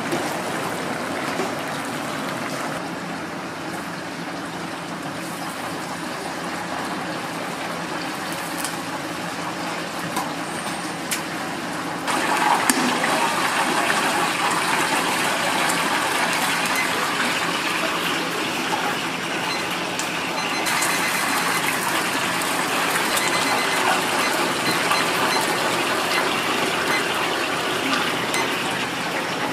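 Hot oil bubbling and sizzling in a commercial deep fryer as whole chickens fry, with a few light metal clicks; the sizzle grows louder about twelve seconds in.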